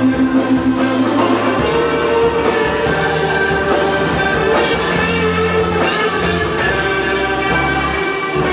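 Live rock band playing, with held chords over drums; the chord changes about a second and a half in.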